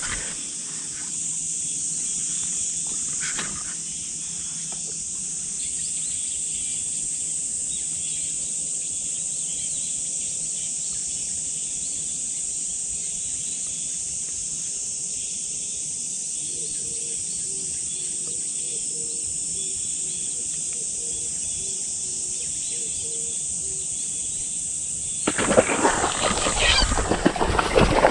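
A steady, high-pitched chorus of insects. About 25 seconds in it gives way to sudden loud, irregular rustling and knocking as the rod and baitcasting reel are handled right at the microphone.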